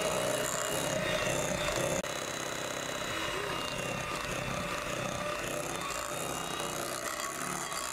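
Electric hand mixer running steadily, its twin beaters whipping a thick cream in a glass bowl. The motor's sound drops a little in level about two seconds in.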